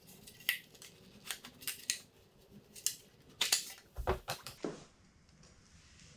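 Carbon fiber front fender being worked into place on a motorcycle's front fork by hand: a run of light clicks, taps and scrapes, with a soft knock about four seconds in, then it goes quieter near the end.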